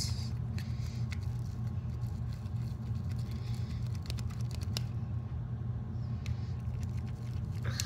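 A plastic stick stirring sticky slime in a clear plastic cup, giving frequent irregular light clicks and scrapes against the cup, over a steady low hum.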